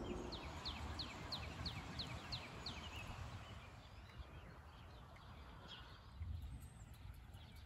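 A songbird singing a quick run of about nine short notes, each falling in pitch, over the first three seconds, faint against a low steady outdoor background noise.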